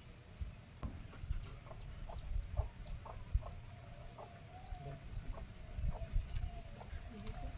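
Chickens clucking in a run of short repeated calls, some drawn out, with dull low knocks throughout.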